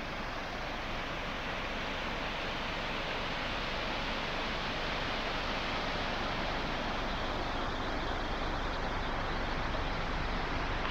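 Steady rushing of a waterfall spilling down a rock face, an even hiss with no engine or voice in it.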